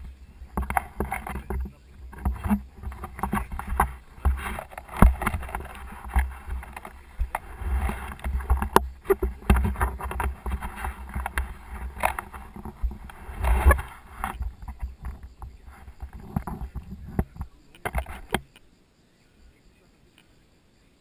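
Close handling noise of an action camera being adjusted and mounted: cloth rubbing over the housing with frequent knocks and thumps. It stops abruptly about 18 seconds in.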